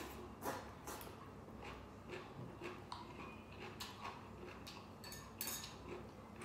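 Close-up eating sounds: chewing, with irregular light clicks and taps of utensils against a bowl.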